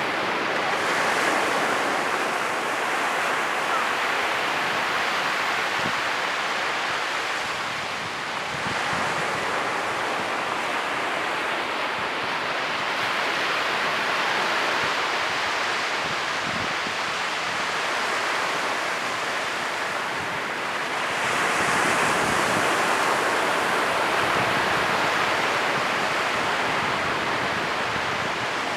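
Ocean surf breaking on a beach: a continuous rushing wash of waves that swells as bigger waves break about a second in and again about 21 seconds in.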